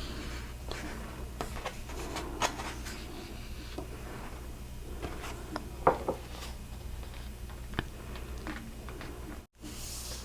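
Pages of a book being turned and handled close to the microphone: scattered soft rustles and taps, with one sharper tap about six seconds in.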